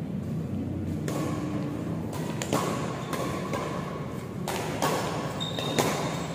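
Badminton rackets striking a shuttlecock in a doubles rally: a string of sharp hits roughly a second apart, over a steady low hum.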